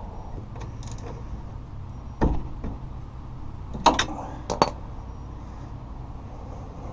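Wrench clinking on a rear brake caliper bolt as the bolt is being loosened: a dull knock about two seconds in, then two pairs of sharp metallic clicks a little over a second later.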